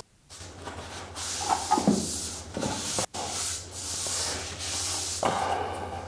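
Rustling and scraping as the pleated filter cartridge of a homemade cyclone vacuum is shaken and rubbed over its dust bin to knock off the dust caught on it.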